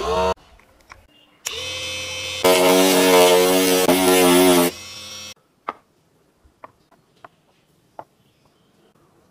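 A small handheld rotary tool with a sanding pad starts up and runs with a steady whine, then sands a PVC plate for about two seconds, its pitch wavering under the load, before winding down. Afterwards come a few faint clicks of plastic parts being handled.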